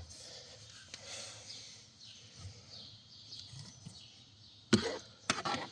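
Quiet handling of a just-removed car cabin pollen filter, then two short, sharp knocks near the end as the filter's frame bumps against the plastic dash or housing.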